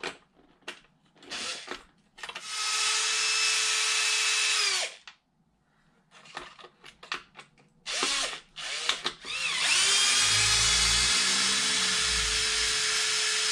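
Cordless drill-driver backing out screws: two runs of steady motor whine, the first about three seconds long and dropping in pitch as it stops, the second starting about nine and a half seconds in. Small clicks and rattles of handling come between the runs.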